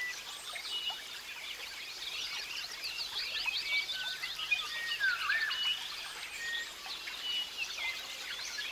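Chorus of many wild birds chirping and whistling, short rising and falling notes overlapping throughout, with one louder swooping whistle about five seconds in.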